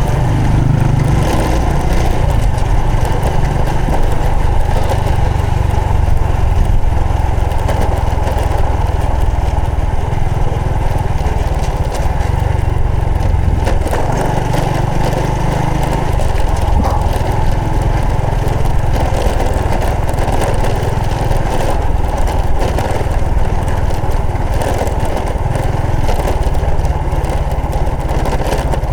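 Honda Supra X 125 FI's single-cylinder four-stroke engine running steadily on the move, over a constant rushing of wind and road noise.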